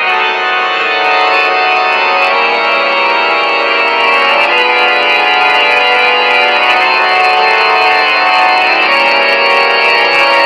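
Organ-style horror music sound effect played from a scary-sounds app on a phone. It starts suddenly and carries on as a dense wall of held notes.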